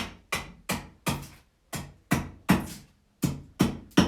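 Axe blows on a wooden blank: a run of sharp chops, about three a second, in groups of three or four with short pauses between.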